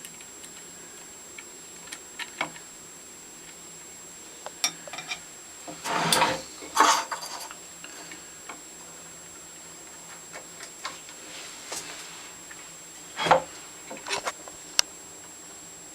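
Metal hand-plane parts being handled on a bench: scattered clicks and clinks, with a louder clatter about six to seven seconds in and a sharp knock near thirteen seconds.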